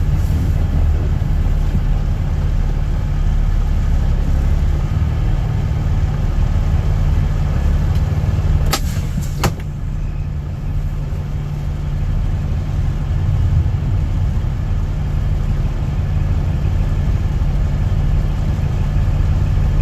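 Truck engine running steadily with a low rumble, heard from inside the cab. Two sharp clicks come a little under halfway through, and the engine sound dips slightly for a few seconds after them.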